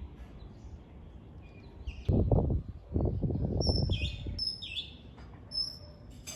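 Small birds chirping in short, high chirps, most of them in the second half. Low rumbling bursts on the microphone, about two and three seconds in, are louder than the birds.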